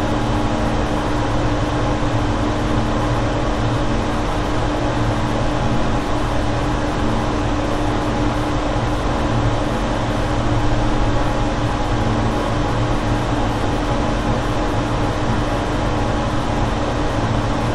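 Boiler room ambience: a steady mechanical hum with a few constant low tones under an even hiss of heating and ventilation machinery.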